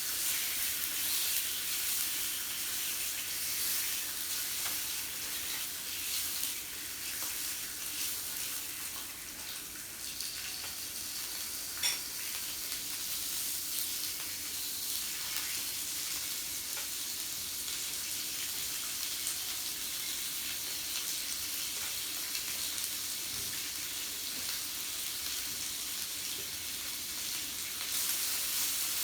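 Meat sizzling steadily on a yakiniku grill, with one sharp click a little before the middle.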